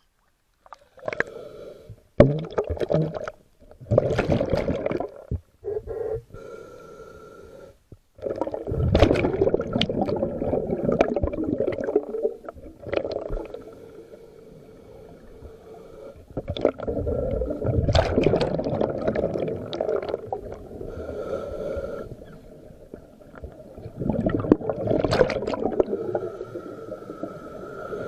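Scuba regulator breathing heard underwater: a loud bubbling rush of exhaled air every several seconds, with a thin steady whistle in the quieter stretches between breaths.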